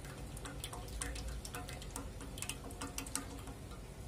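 Cooking oil being poured from a plastic bottle into a frying pan that already holds oil: a faint pour with small scattered clicks.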